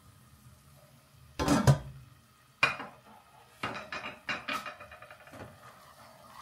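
Kitchen utensils knocking against a cooking pot: a loud clatter about a second and a half in, a single sharp knock, then a run of knocks and scrapes as a wooden spoon stirs tomato and pepper paste in the pot.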